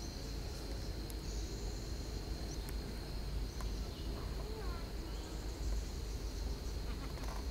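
Forest ambience: an insect holds one steady high-pitched drone over a low rumble, with a few faint chirps about halfway through.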